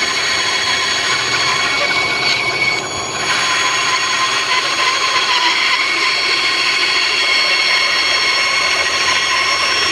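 Band saw running and cutting wood: a steady high-pitched whine of several held tones over a hiss, dipping briefly about three seconds in.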